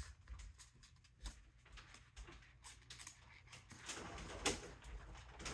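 Faint rustling and light taps of paper and plastic pieces being handled on a folded card project board.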